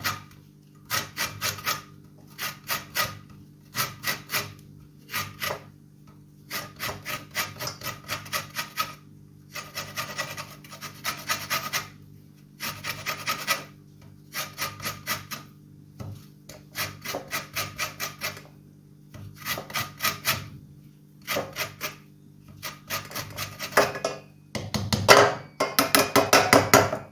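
A lemon being zested on a hand grater: quick rasping strokes, about five a second, in short bursts with brief pauses between them.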